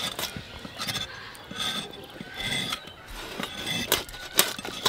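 A large katla fish being cut into pieces on a bonti, the fixed upright blade: irregular crunching and scraping of flesh and bone against the blade, with sharp clicks, the loudest a little past four seconds in.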